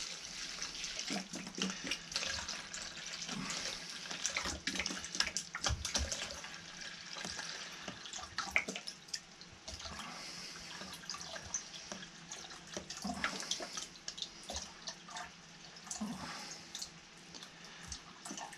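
Water pouring in a thin stream from a plastic bottle into a plastic measuring jug: a steady trickling splash as the jug fills.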